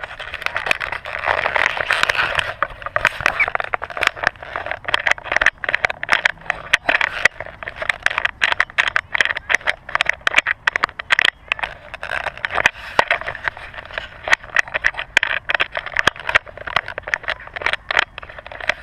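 Close handling noise of a GoPro Hero3 camera being worked off its mount: hands and a sleeve rubbing and scraping over the housing, with many sharp clicks and knocks throughout, stopping suddenly near the end.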